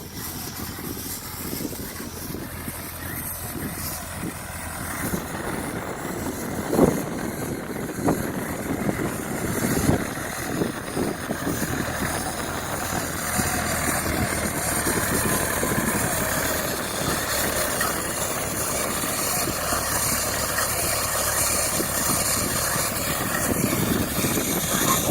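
Tractor engine running steadily while a Tanco Autowrap bale wrapper wraps a haylage bale, with a few knocks from the machine in the first half and the run growing a little louder after that.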